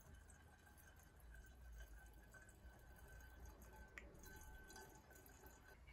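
Very faint trickle of petrol pouring from a plastic jerry can through a small plastic funnel into an aluminium bottle, with one brief tick about four seconds in.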